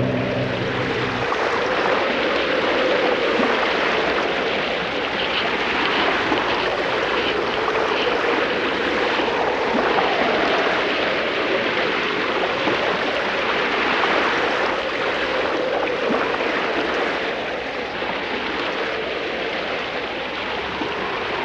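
Steady rush of sea surf and wind, swelling and easing a little, with a faint wavering whistle running through it.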